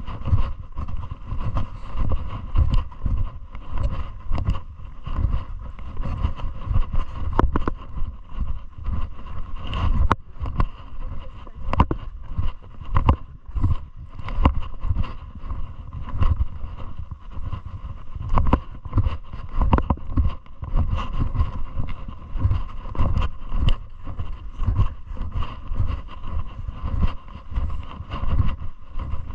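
Wind buffeting the camera microphone in uneven gusts, with scattered irregular knocks from the moving camera.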